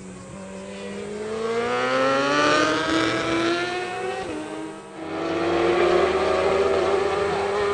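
Racing superbike engine at high revs, its pitch climbing as it accelerates hard out of a corner. About five seconds in the sound drops briefly, then a high-revving engine runs loud again.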